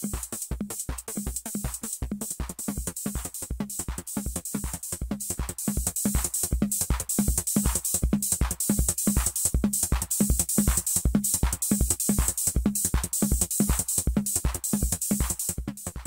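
Electronic music from a Behringer RD-6 drum machine and a Korg Volca Keys synthesizer: a steady, evenly spaced kick-drum pattern with constant hi-hat hiss and synth, getting louder about six seconds in.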